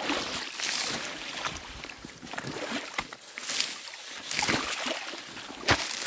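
Boots wading through deep meltwater, sloshing and splashing with each slow step, about one step a second, with a sharper splash near the end.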